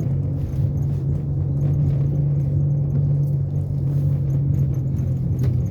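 Steady low drone of road and engine noise inside a moving car's cabin.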